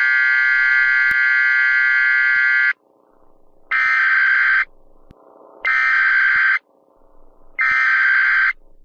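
Emergency Alert System header tones: harsh electronic data bursts. One long burst of about three seconds is followed by three shorter bursts about a second each, spaced about a second apart, marking the start of an emergency broadcast.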